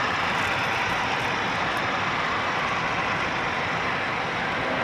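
Steady, even background hum and hiss of a model railroad club room while HO-scale trains run, with no distinct clicks or events.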